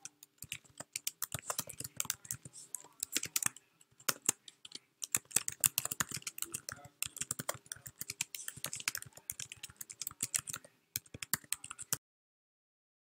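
Computer keyboard typing: a fast, uneven run of key clicks with a couple of brief pauses, cutting off suddenly near the end.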